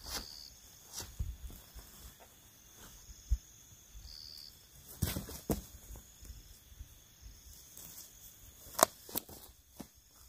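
A tent being staked out: scattered clicks and light knocks as metal tent pegs are pushed into wet grassy ground and the flysheet is tugged. The sharpest click comes near the end.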